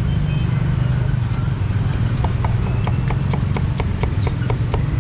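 Meat cleaver chopping on a round wooden chopping board, slicing cucumbers, in quick even strokes of about five a second from about two seconds in, over a steady low hum.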